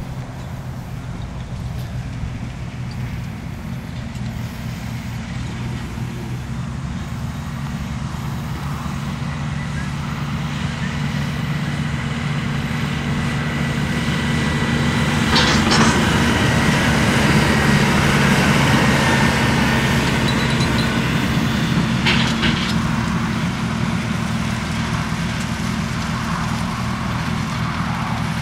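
Diesel engine of a farm machine running steadily under load, growing louder over the first half and then easing slightly. Two short sharp clacks cut through, one about halfway and one a few seconds later.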